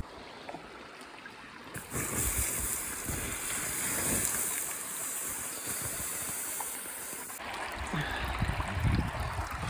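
Campfire of hot embers and heated stones being doused: a loud, steady hiss of steam starting about two seconds in and cutting off sharply about five seconds later. Before and after it, the running water of a shallow stream.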